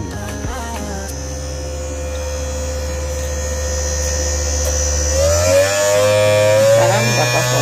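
RS-785 DC motor spinning a small grinding disc with nothing against it, humming at a steady pitch, then speeding up about five seconds in as its adjustable power supply is turned up toward 22.8 volts, so the whine rises in pitch.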